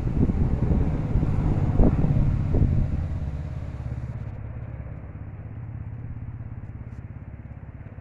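Low engine rumble of a passing motor vehicle, loud at first and fading away from about three seconds in.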